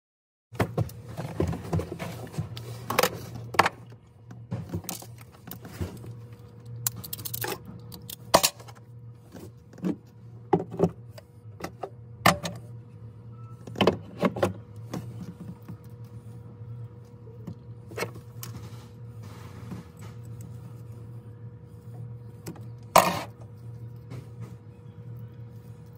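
Scattered clicks, knocks and rattles of a metal fuel pump hanger assembly and a Walbro 450 fuel pump being handled and fitted by hand, with one sharper knock near the end, over a steady low hum.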